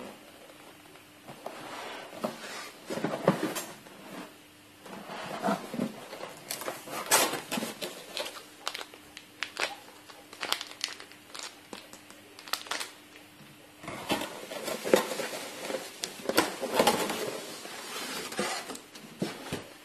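Handling noises: crinkling packaging and irregular light knocks and clatter of hard plastic parts, with a faint steady hum that stops about two-thirds of the way through.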